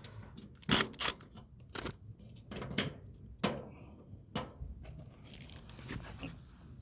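Scattered sharp metallic clicks and knocks from hand tools and sheet-metal parts being handled while working at stripped screws on a mini-split condenser, with softer rustling near the end.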